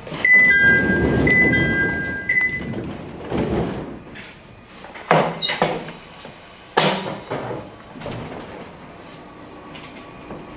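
Door-closing chime of a train's passenger doors: two tones alternating for about two seconds over the rush of the sliding doors moving. This is followed by a few heavy thuds as the doors shut.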